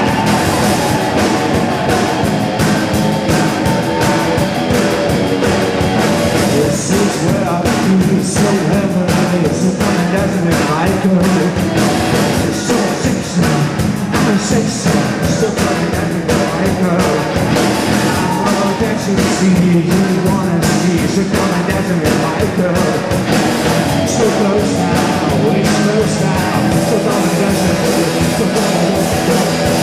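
Live rock band playing: electric guitars and a drum kit keeping a steady beat, with vocals over the top. The full band comes in sharply at the very start.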